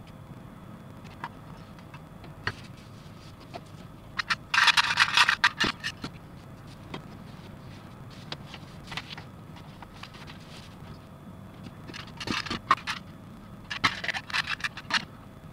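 Small plastic model kit parts being handled and fitted together by hand over a paper instruction sheet. Scattered light clicks, with three bursts of rustling and scraping: the longest about four to six seconds in, two shorter ones near the end.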